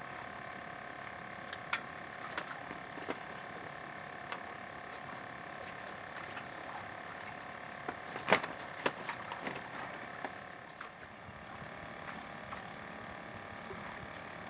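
A steady mechanical hum with several fixed tones, with a few sharp clicks and knocks over it: one loud click early on and a cluster of them near the middle.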